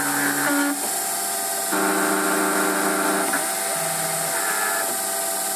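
Emco Compact 5 CNC lathe running a thread-cutting cycle in aluminium. The spindle runs steadily while the axis stepper motors whine in repeating pitched spells, the longest about a second and a half, as the threading tool makes its passes.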